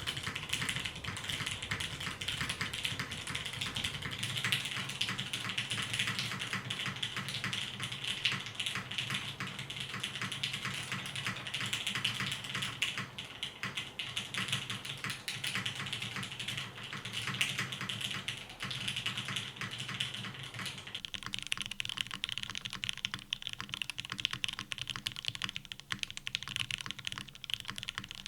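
Continuous fast typing on a custom mechanical keyboard with lubed Oil King linear switches, GMK keycaps and a 2 mm polycarbonate plate: a dense, steady stream of keystroke clacks.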